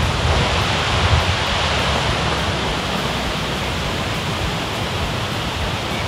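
Steady rush of a waterfall's falling water: an even, unbroken noise with a low rumble beneath.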